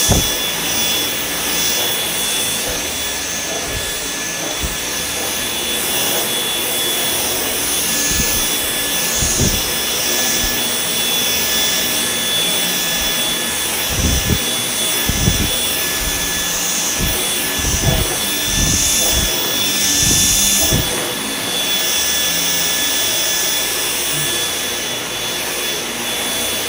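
Dyson V10 cordless stick vacuum running steadily with a high motor whine as its cleaner head is pushed over carpet tiles, with a few short low thumps around the middle.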